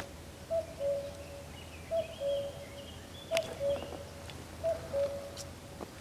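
Common cuckoo calling its two-note "cuck-oo", the second note a little lower, four times at an even pace. Faint higher chirps come in between the second and third calls.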